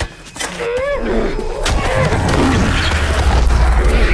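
Horror-film fight sound mix: a sharp thud at the start and a short cry about half a second in. After about a second it swells into a loud, dense din of struggle noise over a deep rumbling score that stays loud.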